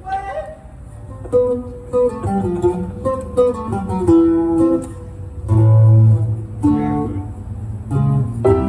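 Live band rehearsal: a guitar picks out a melody in separate plucked notes, with a deep bass note held for under a second about halfway through.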